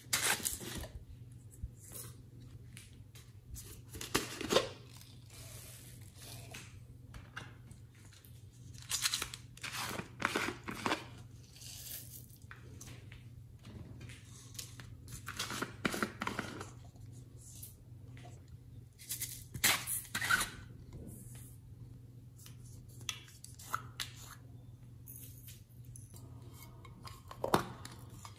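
Hands opening and handling small plastic containers of slime toppings and tipping out foam beads, glitter and sequins: a string of separate rustling, clicking bursts a few seconds apart over a faint steady low hum.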